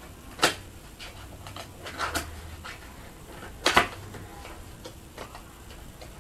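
Plastic product packaging being handled: three sharp clicks or snaps, about half a second, two seconds and nearly four seconds in, the last the loudest, with light rustling between.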